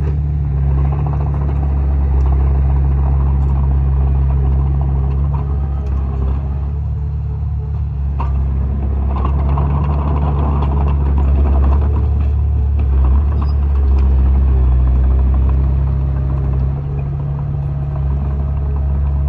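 Bulldozer's diesel engine running steadily under load as it pushes dirt, a low drone with some clatter, swelling a little about midway.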